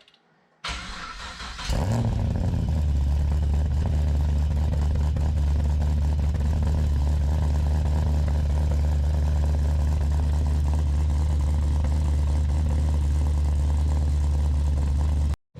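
Supercharged LS7 V8 in a VF Commodore being cranked over by the starter for about a second, catching with a brief rev flare, then settling into a steady, loud, lumpy idle from a big cam. The sound cuts off suddenly near the end.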